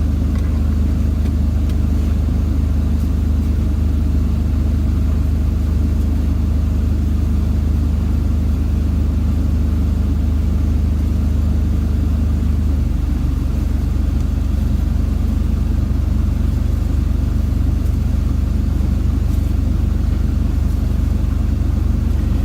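Semi-truck diesel engine idling with a steady low hum. About halfway through, its low drone changes character and becomes a rougher rumble.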